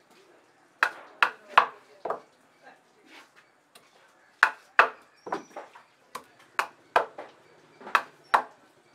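A wooden baton hammering the spine of a large curved fish knife to drive it through tuna head and bone on a wooden chopping block. About a dozen sharp knocks come in quick pairs and threes, with a short pause after the first four.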